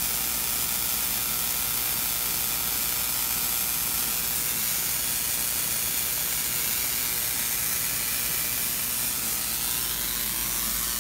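High-voltage spark gaps of a roughly 50 kV pulse supply firing continuously: a steady, dense hiss of rapid sparking with a faint low hum beneath.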